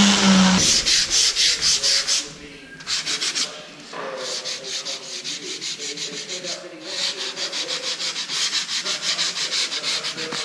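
Hand sanding of a glass-fibre (GRP) boat hull with a sanding block: rapid back-and-forth scraping strokes, about five a second, in runs with short pauses, keying the gel coat. In the first second a small electric sander's hum stops.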